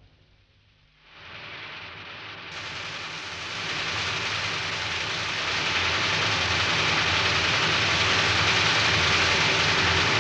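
Metal-turning centre lathe running and cutting: a steady, dense hiss with a faint low hum. It fades up from near silence over the first few seconds, then holds steady and loud.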